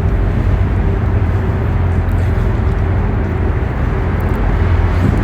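Steady low rumble of outdoor city noise, with no distinct events.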